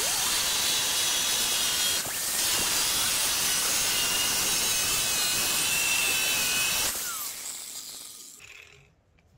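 DeWalt angle grinder with an abrasive cut-off wheel cutting through a steel truck frame rail: a steady, loud grinding hiss with a high whine. It eases off briefly about two seconds in. Near the end the wheel comes off the steel and the grinder spins down.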